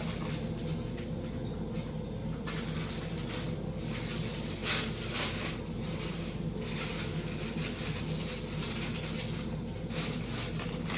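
Pot of salted water at a rolling boil on a gas stove: steady bubbling over the burner's hiss, with a few louder surges of bubbling.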